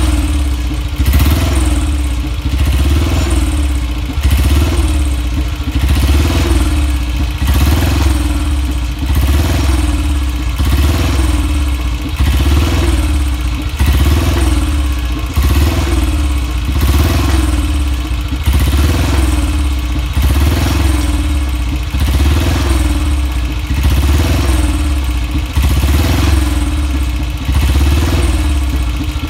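BSA Gold Star DB32's 350 cc single-cylinder pushrod engine running after years laid up, its revs swelling and dropping about once a second.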